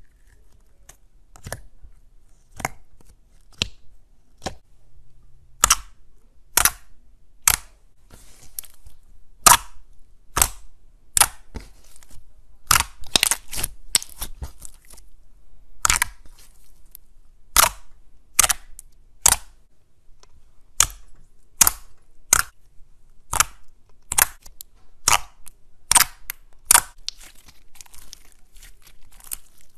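Glossy translucent slime pressed, poked and stretched by hand, giving an irregular string of sharp clicks and pops, about one or two a second.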